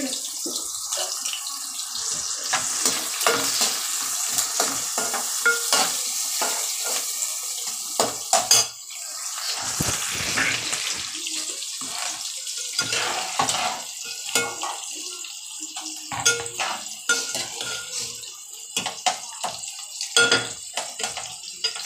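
Chopped onions and green chilli sizzling in hot oil in an aluminium pot, stirred with a spoon that clicks and scrapes against the pot. The sizzle is loudest in the first half.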